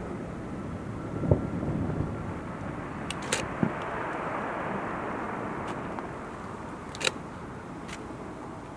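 Aerial fireworks going off: a deep boom from a shell burst about a second in, then sharp cracks at about three and a half seconds and again at about seven seconds, over a steady background rumble.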